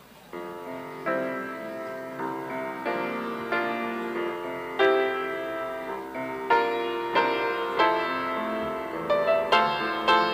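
Piano playing a slow melody with chords, each note struck and then fading, starting just after the beginning.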